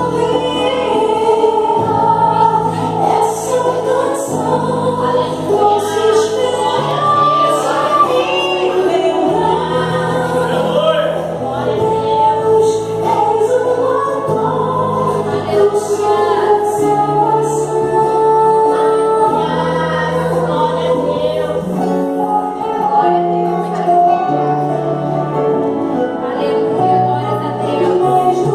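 Recorded Brazilian gospel song: female lead singing with choir backing over a band. The bass holds a note and moves to a new one every couple of seconds.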